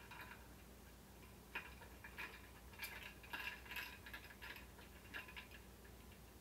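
Ice cubes clinking faintly in a stemmed glass as a drink is stirred with a straw: scattered light clicks, busiest in the middle.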